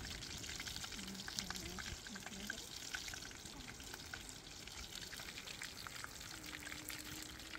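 Pork joint deep-frying in hot oil in a metal wok, the oil bubbling and crackling steadily with many small pops.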